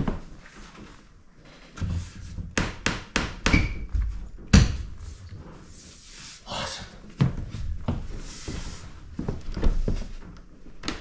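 Thuds and knocks on a boat deck: footsteps and a wooden bulkhead being bumped and set into place, a run of sharp knocks with the loudest about four and a half seconds in, and a brief scrape around six and a half seconds.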